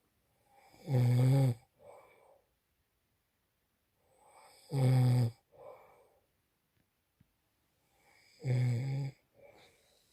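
A man snoring loudly in his sleep: three snores about every three and a half to four seconds, each about a second long, each followed by a shorter, softer breath.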